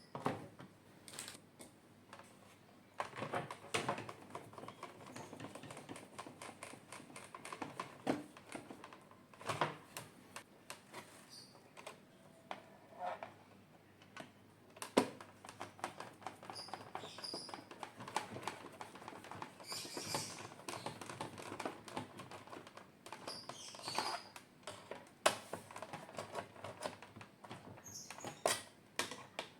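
Irregular clicks, taps and handling noises of plastic washing-machine parts being worked on by hand, with a few faint bird chirps in the background.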